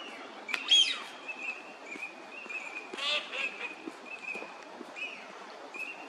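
Eurasian teal drakes giving short, clear whistled calls over and over. There is a louder falling sound just under a second in, and a louder, fuller call about three seconds in.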